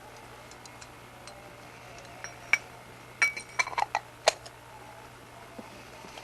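Light metallic clinks and taps from small Mikuni carburetor parts being handled. They come as a scattered run of sharp clicks between about two and four and a half seconds in, the loudest with a short ringing tone.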